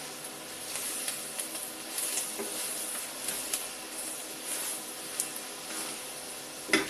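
Pork belly pieces sizzling in a pot as a wooden spoon stirs and scrapes through them with small clicks, and a sharper knock near the end.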